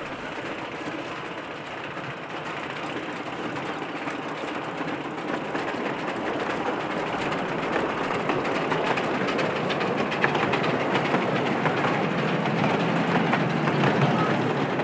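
Narrow-gauge steam train running by, a dense clatter of wheels and rail noise with many fine clicks, growing steadily louder as it approaches.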